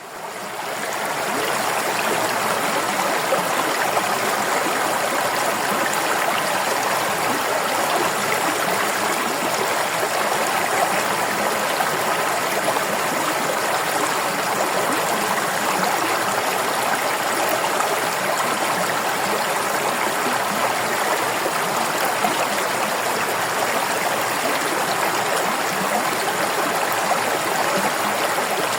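River water flowing steadily over rocks, a continuous rushing and gurgling, fading in over the first second or two.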